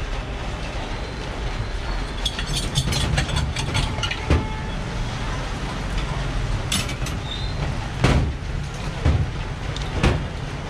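Steady low rumble of street traffic, with scattered sharp clicks and knocks: a quick run of them about two to three seconds in, and the loudest knock about eight seconds in.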